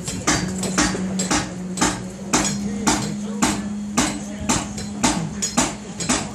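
Rapid hammer blows with a metallic ring, roughly three a second and often in pairs, on a high-rise concrete construction site. A steady low machinery hum runs underneath.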